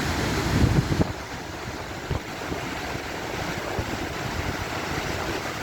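Waterfall rushing as a steady wash of falling water, with wind buffeting the microphone during the first second and again about two seconds in.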